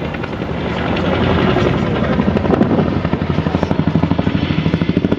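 Helicopter flying close, its rotor noise growing louder, turning into a rapid, even blade slap from a little past halfway.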